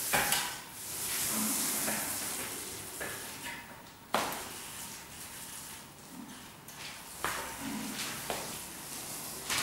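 Paint roller on an extension pole rolling paint onto a ceiling: a wet, sticky hiss that swells and fades with each stroke, with a few sharp knocks in between.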